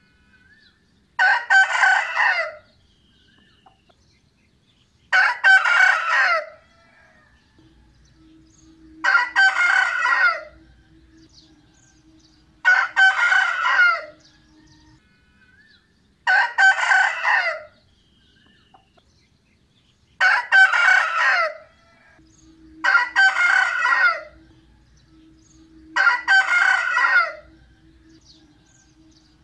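Rooster crowing: eight loud cock-a-doodle-doos, each about a second and a half long, coming every three and a half to four seconds.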